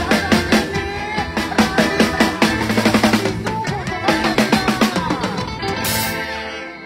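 Band music led by a drum kit playing a quick, steady beat under pitched instruments. A cymbal crash comes near the end, and the music then fades out.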